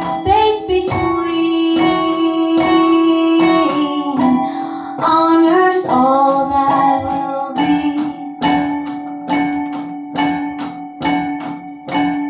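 Music: a woman singing long, held notes over an instrumental accompaniment. After about seven seconds the voice fades and evenly repeated plucked notes, two to three a second, carry on alone.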